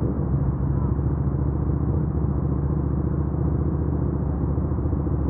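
Suzuki SV650X's V-twin engine running steadily, a low even drone with no change in revs.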